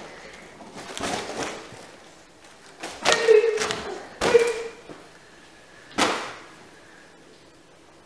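A foil balloon being batted by hand: a few thumps, the sharpest about six seconds in.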